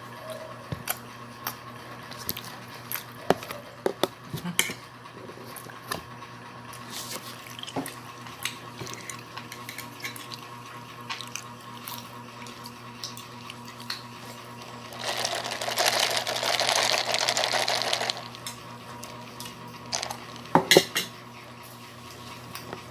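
Milk tea being sipped through a straw from a plastic cup, with small clicks and taps of the cup and straw. About fifteen seconds in comes a loud slurping hiss lasting about three seconds, and a few sharp knocks follow near the end. A steady hum runs underneath.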